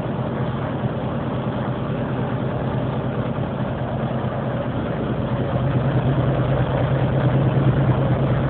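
Caterpillar landfill compactor's diesel engine running steadily, heard from the cab, getting a little louder about two-thirds of the way through.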